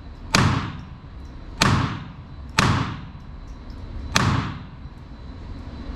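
Four single shots from a SIG Sauer P322 .22LR pistol, fired at an irregular pace: two about a second apart, then a third close behind, and a fourth after a longer pause.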